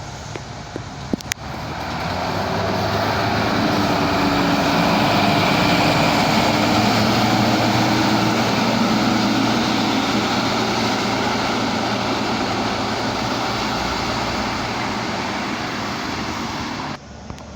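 Tour bus's diesel engine coming through close by, swelling over the first two seconds and then running loud and steady before cutting off suddenly near the end. A single sharp click sounds just over a second in.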